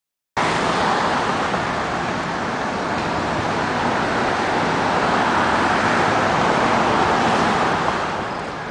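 Steady rush of road traffic passing on the street, cutting in abruptly just after the start, swelling a little past the middle and easing off near the end.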